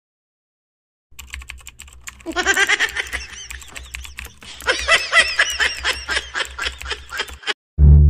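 Rapid clattering of a laptop keyboard being typed on, starting about a second in, joined twice by a monkey's high-pitched excited chattering calls, which cut off abruptly near the end.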